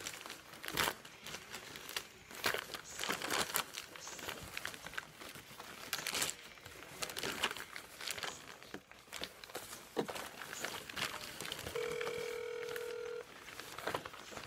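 Rustling and crinkling of wrapped presents and packaging being handled, with a phone call's ringing tone from the speaker, one steady tone lasting about a second and a half near the end.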